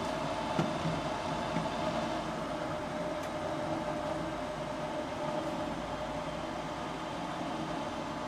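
Draft inducer motor of a Goodman gas furnace running with a steady drone during the ignition sequence, while the hot surface igniter heats and the gas valve has not yet opened. A light click comes about half a second in.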